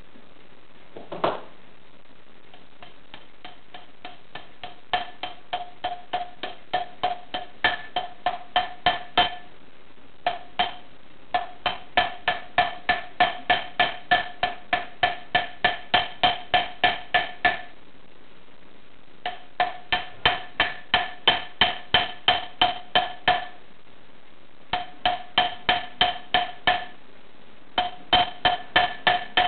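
Hammer strikes on a tin ring fitted over a steel ring mandrel, each blow ringing at the same metallic pitch. The blows come in runs of about three to four a second with short pauses between runs, as in forging a ring on a mandrel.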